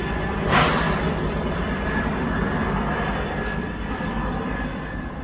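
Helicopter flying overhead: a steady rotor and engine drone with a thin high whine, fading slowly toward the end. A brief rush of noise about half a second in.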